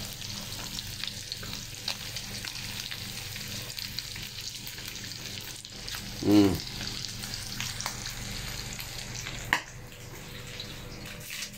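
Tofu and beef frying in oil in a wok: a steady sizzle with small crackles. A short voice-like call cuts in about six seconds in, and there is one sharp click near the end.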